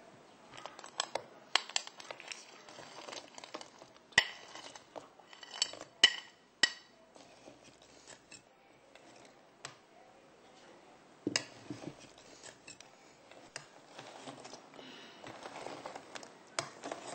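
A metal spoon clinks and knocks against a stainless steel pot, in scattered taps and light scrapes. A few sharper strikes ring out about four to seven seconds in and again near the middle.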